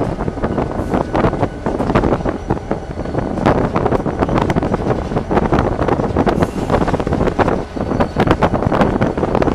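Inside the cab of an EMD SD40-2 diesel-electric locomotive on the move: its 16-cylinder 645 diesel engine running under a steady mix of wheel and track noise, with frequent irregular clicks and knocks as the wheels pass over rail joints and a switch. Wind through the open cab windows buffets the microphone.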